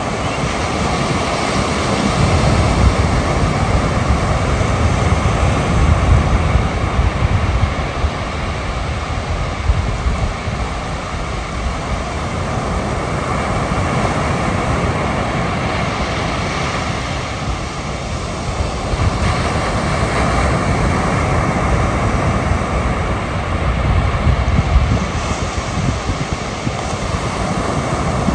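Wind buffeting the microphone, with a loud, steady rushing noise underneath.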